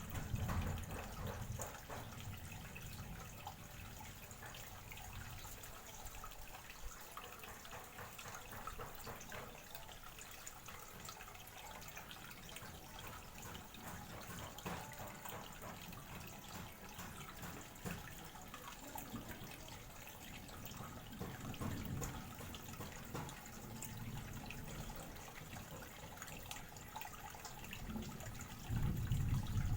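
Running water trickling and dripping steadily, with a low rumble swelling up a few times, loudest near the end.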